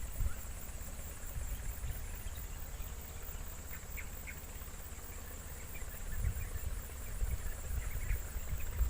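Outdoor stream-side ambience: low rumbling on the microphone under a steady high insect drone, with a few faint short bird chirps about four seconds in and again near the end.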